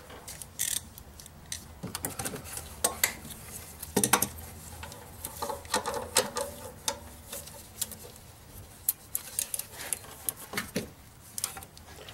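Irregular light metallic clinks and taps of hands and tools working among engine-bay parts, with a louder knock about four seconds in.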